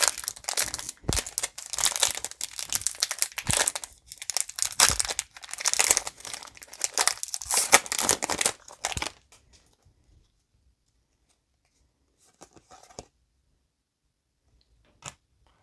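A foil trading-card booster pack wrapper being crinkled and torn open, a dense run of rustling and crackling for about nine seconds, then near silence with a few faint soft rustles.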